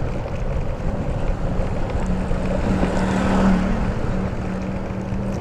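Motor scooter being ridden, its engine humming under a constant rush of wind noise on the microphone. A steady engine tone comes in about two seconds in, and the sound swells briefly around the middle.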